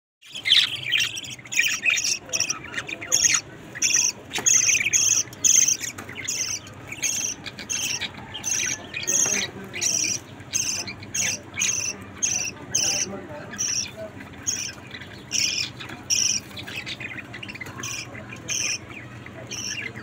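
Budgerigars chirping: a long run of short, high chirps at about two to three a second, growing fainter over the last few seconds.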